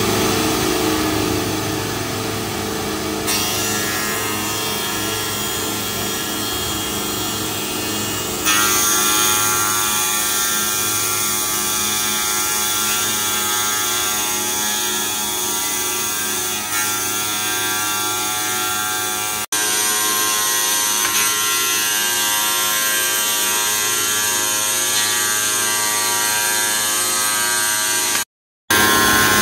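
Automatic three-blade wet tile cutting machine running: its spindle motors drive the blades through porcelain tile under water cooling, giving a steady, loud machine whine with several held tones. The sound shifts abruptly a few times and drops out for a moment near the end.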